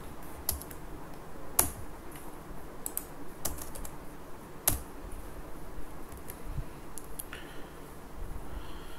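Typing on a computer keyboard: irregular clicking keystrokes, a few of them sharper and louder than the rest.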